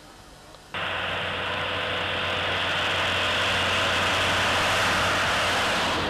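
A minibus driving past on a paved road: engine and tyre noise that starts suddenly about a second in, swells as the vehicle comes by and begins to fade near the end.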